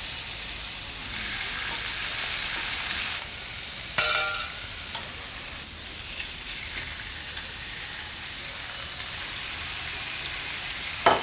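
Chopped white onion sizzling in hot olive oil in a stainless steel frying pan, with a steady high hiss that drops suddenly about three seconds in. A brief clatter comes about a second later, and a sharp knock right at the end.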